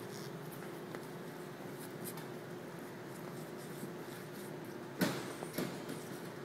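Someone climbing metal ladder rungs: faint scuffing and rustling over a steady low hum, with a sharp knock about five seconds in and a smaller knock just after it.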